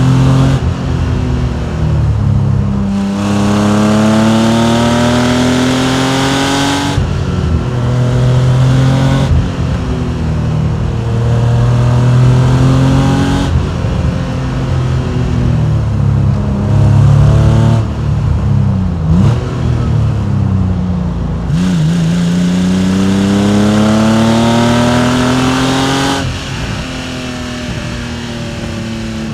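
Porsche 993 Carrera's air-cooled, naturally aspirated flat-six pulling up through the revs several times, with drops in pitch between pulls as the driver lifts off or shifts gear. About two-thirds through there are brief throttle blips, and the engine turns quieter near the end.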